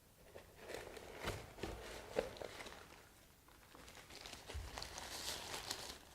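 Faint handling noise of unboxing: a few light knocks and clicks of items being set down and moved, then crinkling plastic packaging being handled from about four seconds in.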